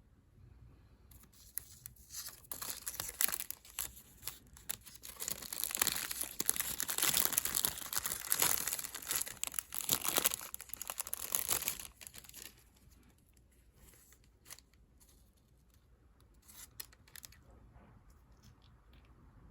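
Packaging being torn open and crinkled for several seconds, then a few light clicks and rustles.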